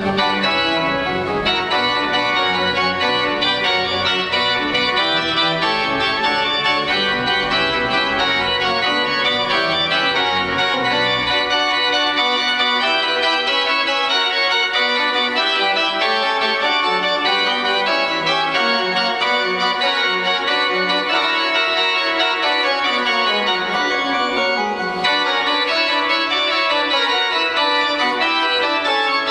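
Church pipe organ playing several lines at once, with a deep pedal bass that drops out about twelve seconds in while the upper voices carry on.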